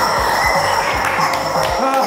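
Background music with a steady beat of about four thumps a second, which drops out near the end.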